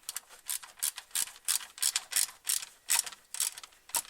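Ratchet wrench with a deep socket clicking steadily, about three clicks a second, as it runs in a screw that holds the radiator fan motor.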